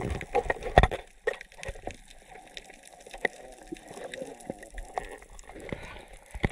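Water sloshing and gurgling around a camera held just under the surface while snorkelling, with scattered irregular clicks and a couple of louder knocks in the first second.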